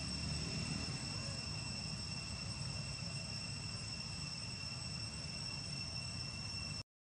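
Steady, high-pitched drone of insects, one unchanging tone with a higher overtone, over a low background rumble. It cuts off abruptly just before the end.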